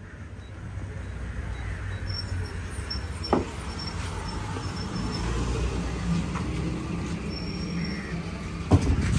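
A motor vehicle's engine rumbling close by, growing louder over the first few seconds and then holding steady. A sharp knock comes about three seconds in, and a couple more near the end.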